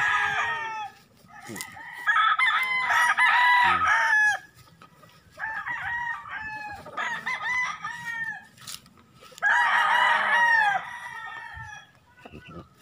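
Several gamefowl roosters crowing in turn, their crows overlapping, in four loud bouts of one to two seconds each.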